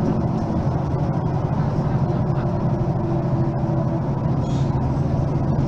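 Diesel engine of a Mercedes-Benz Citaro Facelift city bus running at steady revs, its low drone holding an even pitch.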